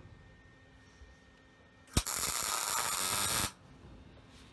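Electric arc welder striking with a sharp crack about two seconds in, followed by about a second and a half of steady weld noise that cuts off suddenly. It is a short weld fixing a sharpened bolt onto the head of a seized door hinge screw.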